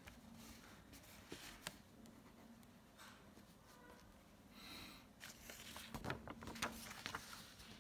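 Faint pen strokes on paper, then the rustle and light taps of a paper sheet being turned over and handled, busiest about five to seven seconds in.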